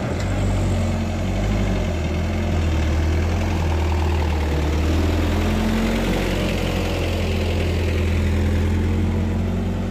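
Mitsubishi Fuso Canter truck's diesel engine running under load as the truck climbs slowly up a steep grade and passes close by. It is a steady low drone that swells a little as the truck goes past.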